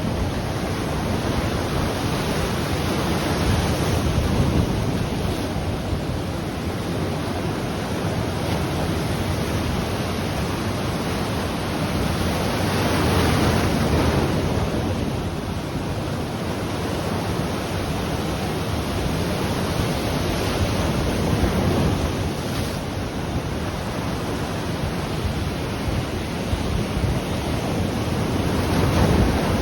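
Ocean surf breaking on the shore: a steady wash of waves that swells louder every several seconds as each wave comes in.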